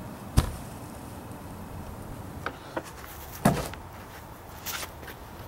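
Freshly sawn white oak slabs being tipped and set down on the ground: a sharp heavy thud about half a second in and another a little after three seconds, with a couple of lighter knocks between and faint scraping near the end.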